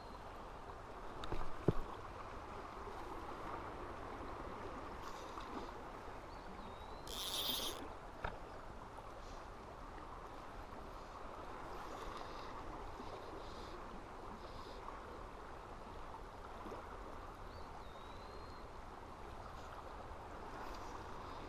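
Steady rush of a rocky stream flowing over a riffle. A couple of sharp knocks, the loudest about one and a half seconds in, a short high hiss about seven seconds in, and three brief rising bird chirps.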